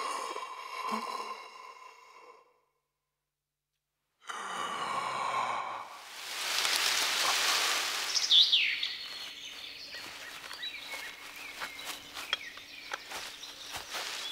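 A man's long, heavy sighing breaths, broken by a second or two of silence. Then rustling in grass, with falling bird chirps in the background.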